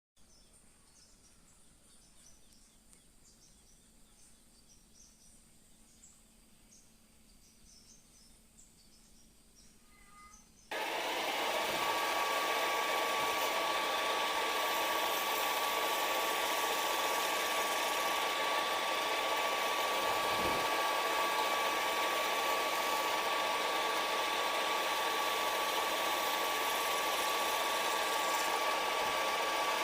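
Faint room noise for about ten seconds, then a manual metal lathe comes in suddenly and runs steadily: a loud, even machine noise with a steady whine.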